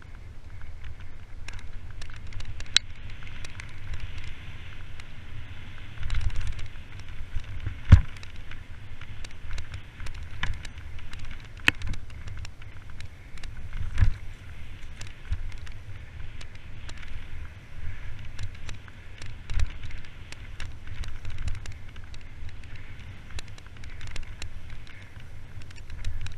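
Mountain bike ridden fast down a dirt singletrack: a constant low rumble with tyre noise over dirt, and frequent rattles and clicks from the chain and frame. Sharp knocks from the bike hitting bumps are sprinkled throughout, the hardest about eight seconds in and others near twelve and fourteen seconds.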